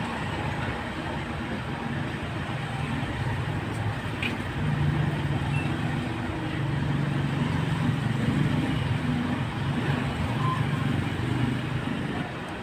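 Engine of a nearby road vehicle running with a low steady hum, growing louder about four seconds in and easing off near the end.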